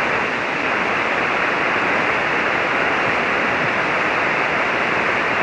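Steady hiss of shortwave band noise from a ham radio receiver tuned to single sideband, with no reply readable above it: the called station is under the noise level.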